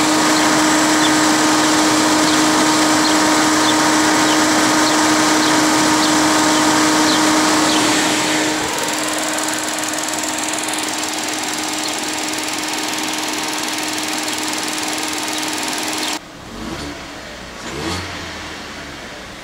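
2015 Ford Fiesta engine running steadily on fresh oil, with oil pressure up. It is loud and close at first, drops a little about halfway through, then turns suddenly quieter and muffled near the end, with a couple of low thumps.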